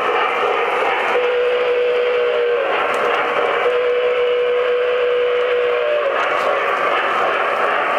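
Two long steam-whistle blasts from the Weaver brass PRR G5's QSI sound system, with a short gap between them. Under them runs the steady rolling noise of O gauge freight cars on the track.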